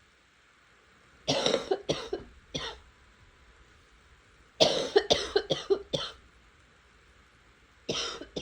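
A person coughing in fits: three coughs, a pause, then a run of four or five, and another cough beginning near the end. It is a recurring cough that the uploader links to sinus trouble.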